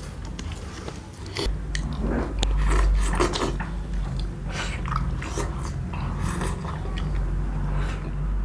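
A person biting into and chewing food, with many small irregular clicks and crunches of eating.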